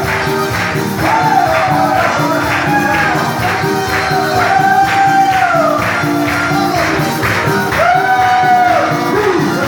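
Live praise music played at a quick, steady beat, with a tambourine and voices over a melody that glides up and down.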